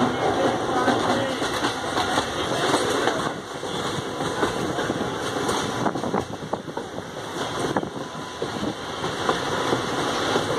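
Passenger train in motion, heard from inside a carriage by an open window: a steady running rumble of wheels on track, with occasional sharp clicks.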